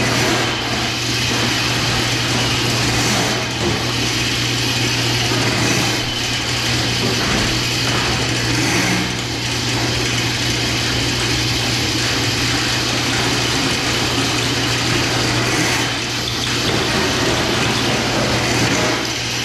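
A machine running steadily with a constant low hum and a rattling mechanical noise.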